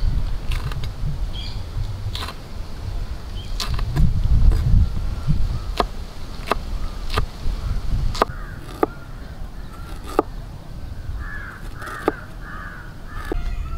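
A steel cleaver chops green chillies and then ginger on a wooden board: a dozen or so separate knocks, about one a second, over a low rumble. A crow caws several times near the end.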